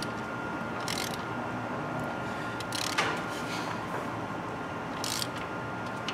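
Ratchet head of a digital torque wrench clicking in short runs, about five strokes a second or two apart, as a spark plug is tightened toward 13 foot-pounds.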